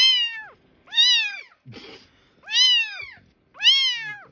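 Orange-and-white kitten meowing loudly: four high-pitched cries about a second apart, each rising and then falling in pitch.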